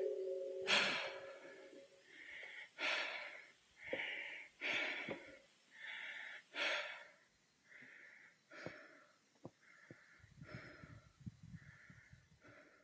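A person breathing heavily, in and out about once every two seconds, growing softer in the last few seconds.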